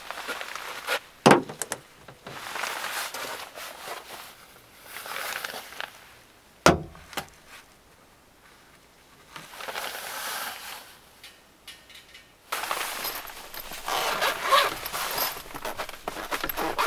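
Camping gear being handled in a small van's cargo area: irregular rustling of clothing and fabric, with two sharp knocks, one about a second in and one about halfway through as a fitting is set against the van's interior pillar. The rustling grows denser for the last few seconds.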